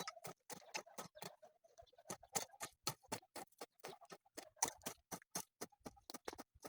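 A rapid, irregular series of sharp clicks and taps, about six to eight a second.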